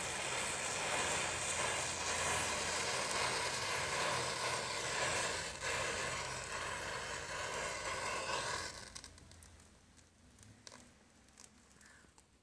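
Hundreds of matchsticks burning together, a steady hiss and crackle of flame. About nine seconds in it drops suddenly much quieter, leaving only a few faint crackles and ticks.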